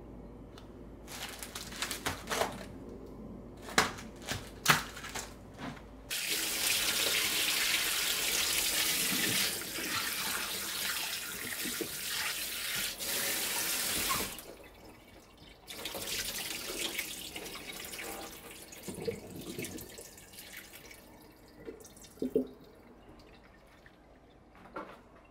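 A few clinks of dishes and utensils, then a kitchen tap running hard into a sink for about eight seconds. It stops briefly, runs again more softly, and a few light knocks of dishes follow.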